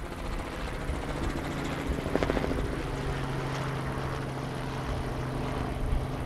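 Light helicopter flying overhead: a steady drone of engine and rotor with a low hum, the beat of the rotor blades coming through most plainly about two seconds in.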